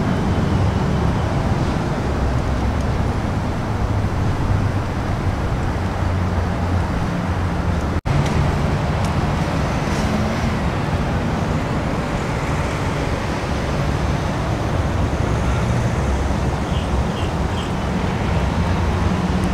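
Steady low outdoor rumble with a brief dropout about eight seconds in, and a few faint short high chirps near the end.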